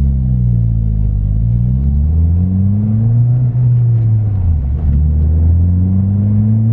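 Ford Fiesta ST180's 1.6 turbocharged four-cylinder engine and Scorpion 3-inch non-resonated cat-back exhaust, heard from inside the cabin while accelerating. The revs climb, dip, and climb again, fall away sharply about four and a half seconds in as if on a gear change, then rise steadily through the rest.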